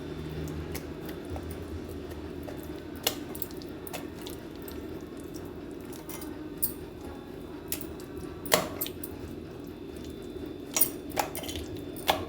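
Fish pieces being coated with masala by hand and set down in a metal vessel: scattered sharp clinks, about six, over a steady low hum.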